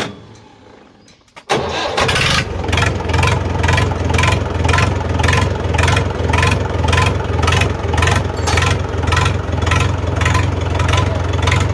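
Mahindra four-cylinder tractor diesel engine being started: a brief crank that catches about a second and a half in, then settling into a steady idle with an even pulsing beat.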